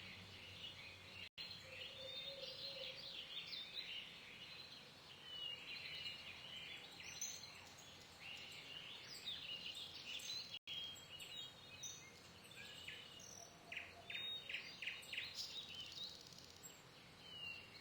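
Small birds chirping and singing, many short high calls overlapping, with the sound cutting out for an instant twice.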